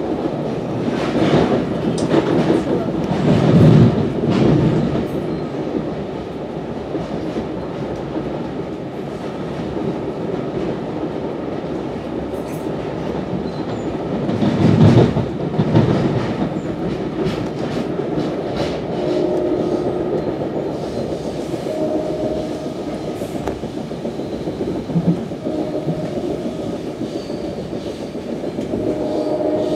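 Interior ride noise of an NJ Transit Multilevel II passenger coach running at speed: a continuous rumble of the wheels on the rails, swelling louder twice, about three and fifteen seconds in.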